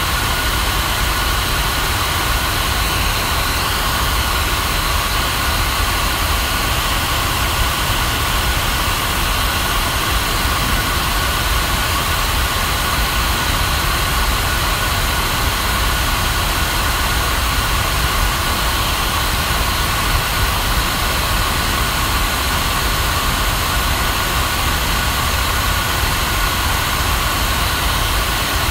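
Steady white noise for lulling a baby to sleep: an even rushing hiss over a deep rumble, with a few faint steady tones, like a running engine or motor, and no change in level.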